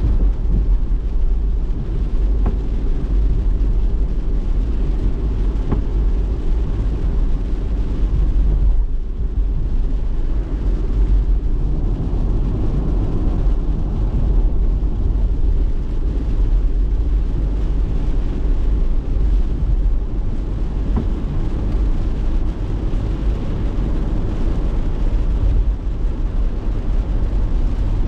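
Steady low rumble of a car driving on a wet expressway, tyre and road noise heard from inside the cabin, easing briefly about nine seconds in.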